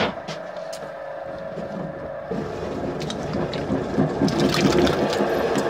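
Potter's wheel running with a steady hum while wet hands wipe slurry off the spinning wheel head. There is a sharp knock at the very start. A little over two seconds in, the hum shifts and the wet rubbing and splashing grow louder, with many small ticks.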